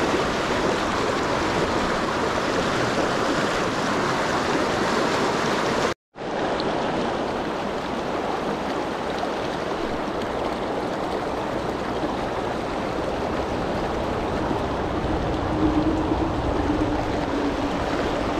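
Fast mountain creek rushing over rocks and through riffles: a steady rush of water that cuts out for a moment about six seconds in.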